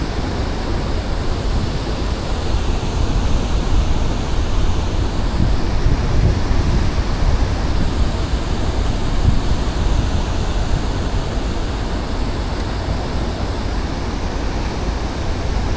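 Wind buffeting the microphone, a steady, fairly loud rumble and hiss with a water-like rush, outdoors on the river.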